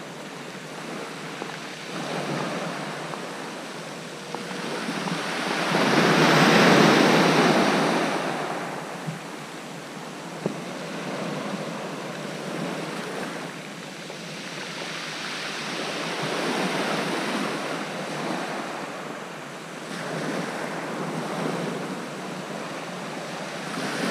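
Sea waves breaking and washing up a shingle beach, the rush of surf swelling and fading every four to five seconds, the biggest wave a few seconds in.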